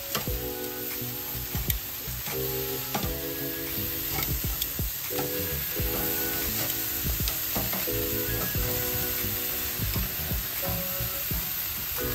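Hamburger patties sizzling on a charcoal grill, with clicks and scrapes of metal tongs as patties are lifted and turned. Background music with a repeating chord pattern plays under it.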